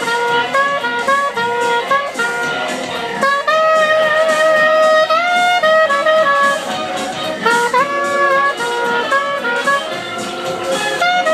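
Saxophone playing a melody of held and quickly changing notes live over a DJ's backing track with a steady beat.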